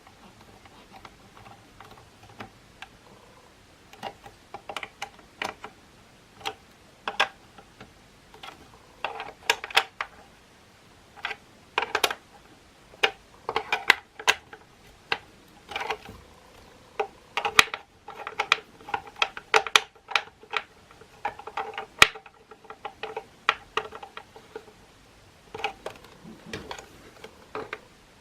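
Irregular small clicks, taps and knocks of the hard plastic housing and parts of a Makita CL107FD cordless vacuum being handled and worked on by hand. The clicks come in clusters, with a few sharper knocks.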